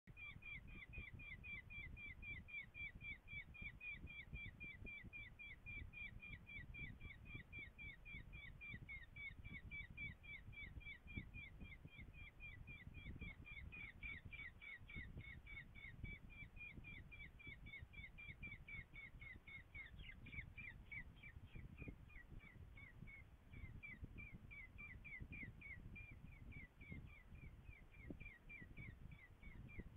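Falcon chick begging: a steady, rapid series of short, shrill call notes, about four a second, with a low rumble underneath.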